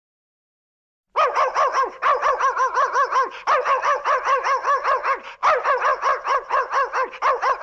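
A dog barking in fast, high yaps, about six a second, starting about a second in and going on with only a brief break.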